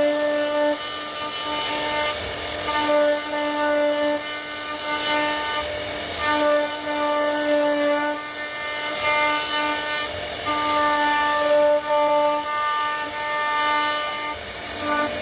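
CNC router spindle whining at one steady high pitch while its bit cuts into wood, the tone dropping out and coming back every few seconds as the cut goes on.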